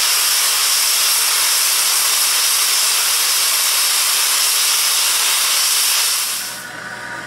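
Safety valve on the boiler of the double Fairlie locomotive David Lloyd George blowing off steam in a loud, steady hiss, dying away about six seconds in. The valve is lifting under a boiler steam test while the two safety valves are set so that the top end lifts about 5 psi before the bottom end.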